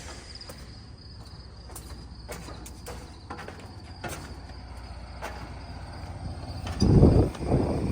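Insects trilling steadily on one high note over a low outdoor rumble, with a few light clicks and knocks scattered through. About seven seconds in, a loud burst of low rumbling noise briefly covers them.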